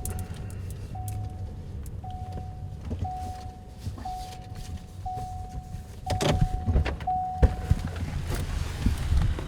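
Car warning chime dinging about once a second over a low engine rumble, with a few knocks and a door-like thump about seven seconds in, after which the chime stops.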